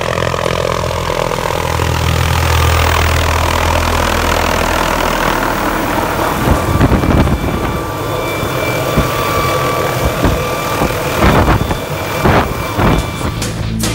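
Small turbine helicopter flying in close and hovering low over the ground, a steady engine and rotor noise with a thin turbine whine. Rotor wash buffets the microphone in gusts from about six seconds in.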